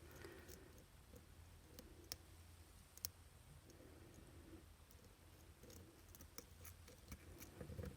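Near silence with faint, scattered clicks of a lock pick and tension wrench working the spring-loaded pin tumblers of a Master Lock 931 padlock, the sharpest ticks about two and three seconds in.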